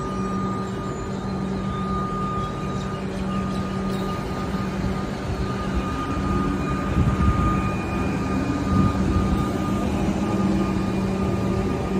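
Comeng electric suburban train rolling slowly past a platform: a steady electrical hum with a thin high whine over the rumble of its wheels on the track.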